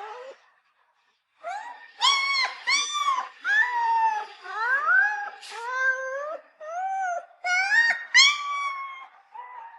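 A puppy crying: a string of short, high whimpering cries, each rising or arching in pitch, after a pause of about a second near the start.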